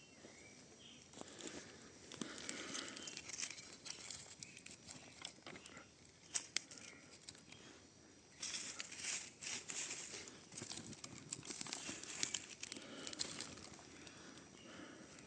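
Dry twigs and kindling crackling, snapping and rustling as a campfire is being built, with irregular sharp cracks.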